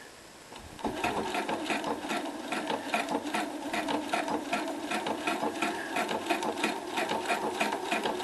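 Domestic sewing machine starting up about a second in and stitching steadily with a twin needle: a fast, even run of needle strokes over a steady motor hum.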